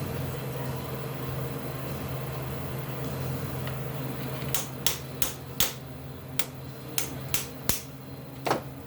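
A steady low hum, then from about halfway through about ten short sharp taps, roughly two a second: a small hammer tapping a tight-fitting wheel-cylinder part of an old car's brakes without driving it home.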